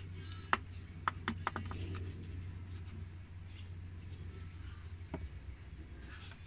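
Scissors snipping the seal on a plastic degreaser jug and the jug's cap being worked open. A quick run of small sharp clicks comes in the first two seconds and one more a little after five seconds, over a low steady hum.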